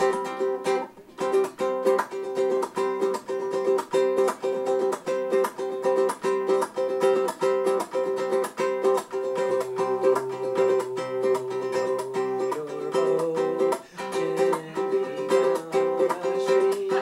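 Ukulele strumming chords in a steady, even rhythm.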